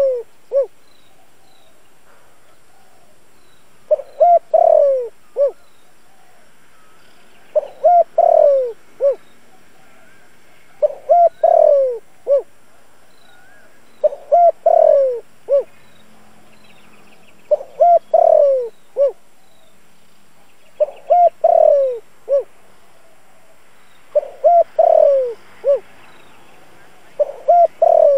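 Caged decoy spotted dove cooing, repeating its song phrase about every three and a half seconds: a couple of short notes, a longer falling coo and a short closing note.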